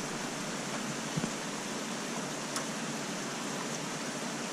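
Steady rushing hiss throughout, with a soft knock about a second in and a faint click about a second and a half later as a wire-mesh minnow trap is handled and unclipped.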